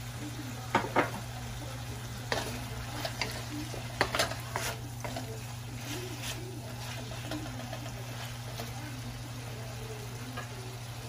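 Pork frying in a metal wok with a quiet sizzle, stirred with a wooden spatula that knocks and scrapes against the pan in a cluster of sharp clicks during the first half, under a steady low hum.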